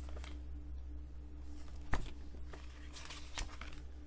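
A printed paper booklet being handled: light rustling and a few soft taps, with one sharper knock about two seconds in, over a steady low hum.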